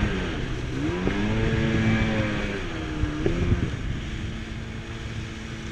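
Jet ski engine changing throttle. Its pitch dips at the start, climbs back about a second in and holds, then falls away near the middle with a brief blip. After that it runs slower and quieter under a steady rush of water and wind.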